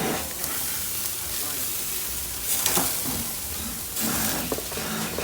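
Meat sizzling on a barbecue grill: a steady hiss that flares louder about two and a half seconds in.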